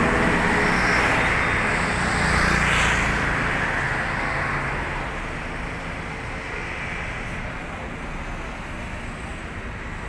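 Highway traffic noise: a vehicle passes close by, loud for the first three to four seconds and then fading, leaving a steady hiss of road traffic.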